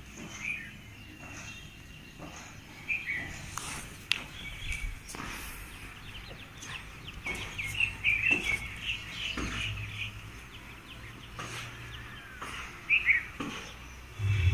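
Birds chirping in many short, high chirps, busiest about halfway through and again near the end.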